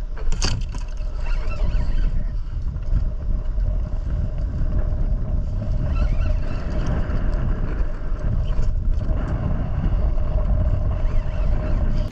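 Wind buffeting the microphone of a head-mounted camera on an open boat, a heavy, uneven rumble, with a steady thin hum beneath it and a few faint clicks.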